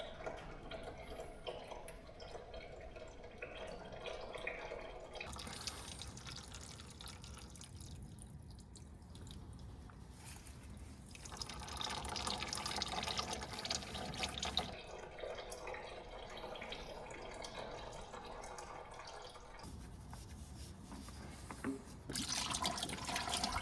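Engine oil running out of a Massey Ferguson 6150 tractor's sump drain into a drain pan, a liquid stream splashing that swells and eases a few times. The oil is thin and watery from years without a service.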